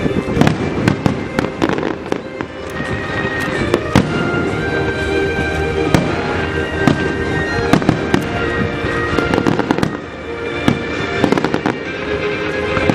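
Aerial fireworks going off in rapid succession: a continuous run of sharp bangs and crackles, many each second, with music playing underneath.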